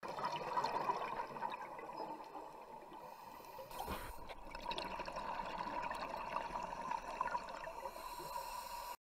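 Scuba divers' regulator exhaust bubbles gurgling and rushing, heard underwater as a steady muffled bubbling.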